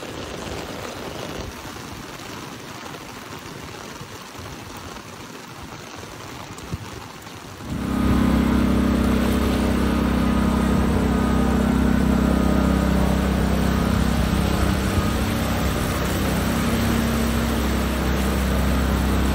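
Steady rain falling on the road and umbrella. About eight seconds in, a much louder steady low hum with a faint higher whine starts suddenly and holds, drowning the rain.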